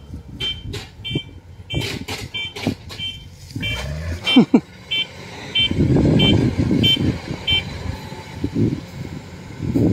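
Warning beeper on a crawler rice combine harvester, sounding short high beeps about one and a half times a second and stopping a couple of seconds before the end, over the running engine.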